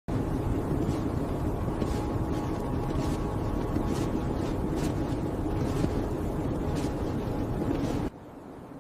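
Strong blizzard wind blowing steadily, cutting off abruptly about eight seconds in.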